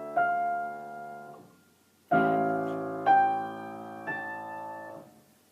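Piano playing slow right-hand notes over held low left-hand notes. One note is struck just after the start and dies away. After a short pause, a chord is struck and two more notes are added about a second apart, all ringing out and fading before the end.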